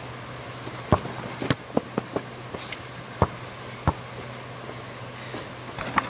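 Basketball play: a string of sharp, irregular thumps from the ball bouncing and striking the hoop, several in quick succession about a second or two in, with a steady low hum underneath.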